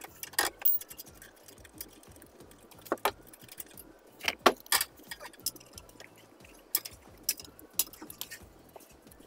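Metal hand tools clicking and clinking at irregular intervals: a 13 mm ring spanner and ratchet working the manual transmission's oil level bolt. The loudest cluster of clinks comes about halfway through.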